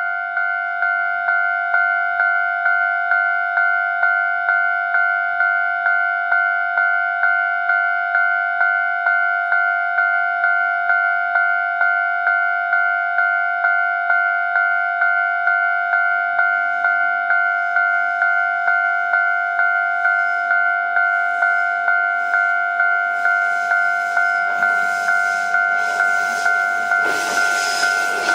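Japanese level-crossing warning bell ringing, an electronic ding repeating evenly a little under twice a second. In the last few seconds the rumble and wheel clatter of the approaching KiHa 52 and KiHa 28 diesel railcars grows loud under it.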